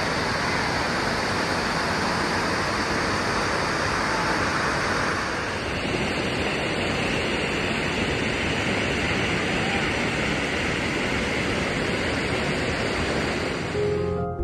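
Waterfall pouring close by onto rock and a plunge pool, a steady heavy rush of splashing water heard from beneath the falling curtain. The rush changes tone about five seconds in.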